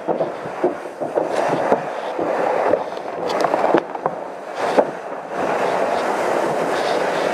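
Interior of a burning house: a steady rush of noise, broken by many irregular crackles, pops and knocks, with the rushing becoming steadier about five seconds in.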